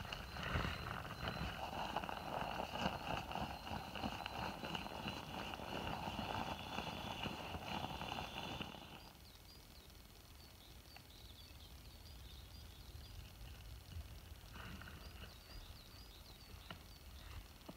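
Air rushing out of an inflatable sleeping pad's valve as the pad is squeezed and rolled up, with the crackle of its nylon fabric. It stops suddenly about nine seconds in, and a softer stretch of the same rushing comes back near the end.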